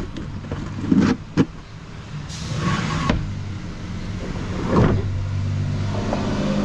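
Knocks and a sliding scrape as gear is packed into a plywood slide-out drawer in a pickup bed and the drawer is pushed in. A louder thump comes about five seconds in, all over a steady low hum.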